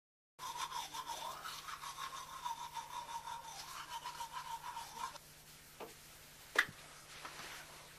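Teeth being brushed with a manual toothbrush: quick back-and-forth scrubbing strokes that stop about five seconds in. A small click follows, then a single sharp knock, the loudest moment.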